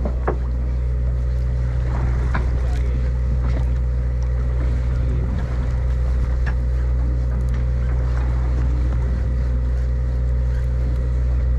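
A fishing party boat's engine running with a steady low drone, with a few light knocks over it.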